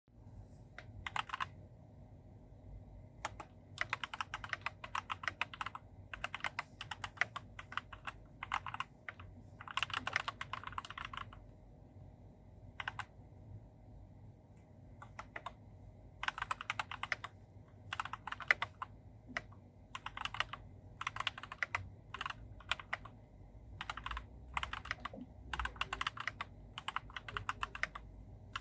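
Typing on a Keychron C2 mechanical keyboard fitted with Gateron G Pro 2.0 Brown tactile switches and ABS keycaps: quick runs of keystroke clacks in bursts of a second or two, with short pauses between.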